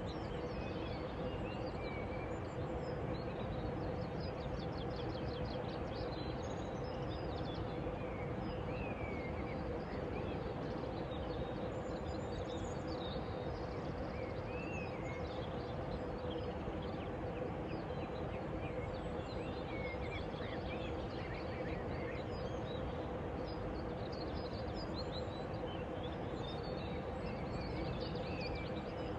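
Small birds chirping and twittering on and off, over a steady background noise with a faint constant hum.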